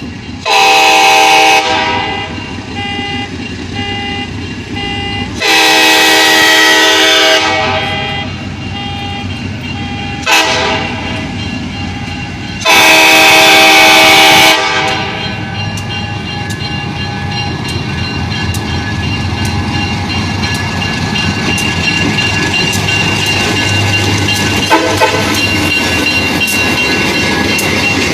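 A Durango & Silverton steam locomotive's chime whistle sounds the grade-crossing signal: two long blasts, a short one and a long one. Between the blasts a car alarm beeps in a quick, even pattern. The train then runs past, its noise slowly growing louder.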